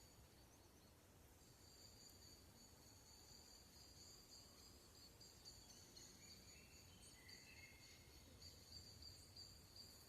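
Faint insect chorus of steady high-pitched trilling in two even tones, growing stronger about a second and a half in. A bird sings a few short, soft notes about six to eight seconds in.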